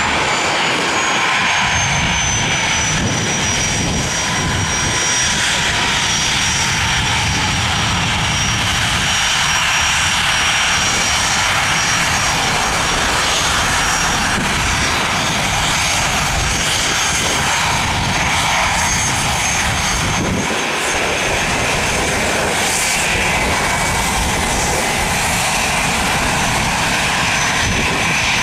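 Aircraft engines running loudly and steadily, with a high whine that falls in pitch over the first few seconds.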